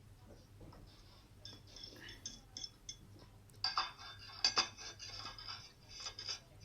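Cutlery scraping and clinking on a plate while someone eats a salad: light scrapes at first, then a louder run of clattering scrapes in the second half.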